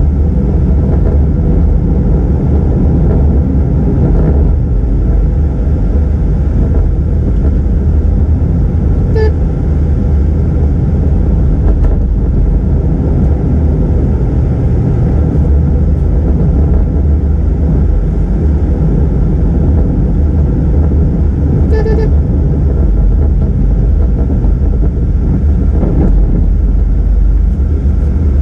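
Car driving, heard from inside the cabin: a steady low rumble of engine and tyre noise. A vehicle horn toots briefly twice, about nine seconds in and again about twenty-two seconds in.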